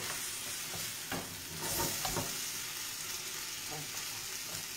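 Cooked basmati rice with guanciale and artichoke sizzling in a frying pan with a splash of added water, stirred with a wooden spoon that gives a few soft scraping knocks. The sizzle swells briefly about two seconds in.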